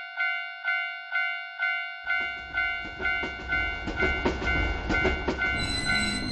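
Japanese railroad crossing warning bell going "kan-kan", about two strokes a second. About two seconds in, a train passes with a low rumble and wheels clacking rhythmically over the rail joints. Near the end a high steady tone comes in as the bell stops.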